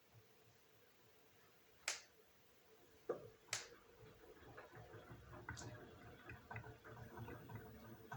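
Beko washing machine, faint: two sharp clicks about two and three and a half seconds in, with a knock between them, then a soft irregular clatter of small ticks as the drum starts to turn.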